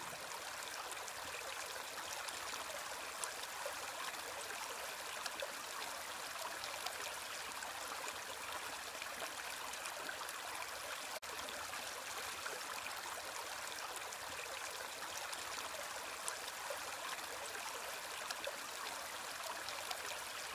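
Steady hiss of running or falling water, with faint scattered ticks.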